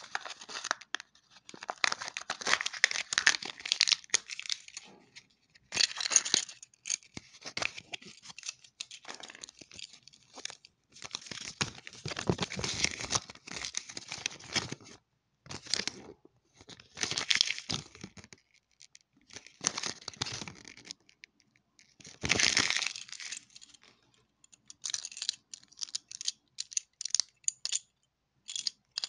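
Kinder Surprise toy wrapper being torn and peeled open by hand, crinkling in short repeated bursts with pauses between. One fuller burst comes about two-thirds of the way through.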